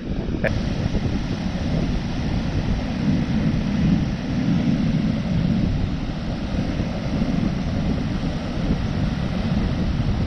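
Strong wind buffeting the microphone over the low rumble of heavy surf, a steady noise that swells and eases without any pitch.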